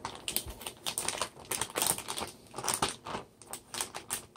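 Ziploc-style plastic zipper bag crinkling and rustling as it is handled and pulled open, in quick irregular crackles.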